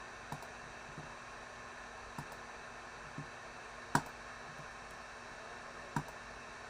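A few isolated short, sharp clicks over a faint steady hiss, the two loudest about four and six seconds in.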